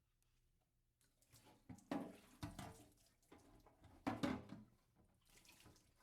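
Two short bouts of knocking and rubbing handling sounds, the first about two seconds in and the second about four seconds in, with a few faint ticks between them.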